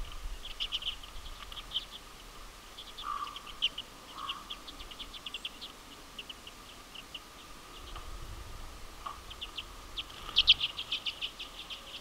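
A flock of common redpolls chattering: short, high chips in quick series, loudest in a rapid burst about ten and a half seconds in. A faint steady tone runs underneath.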